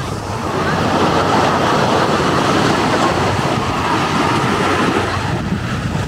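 Surf on a sandy beach: waves breaking and washing ashore in a steady rushing noise that swells slightly about a second in.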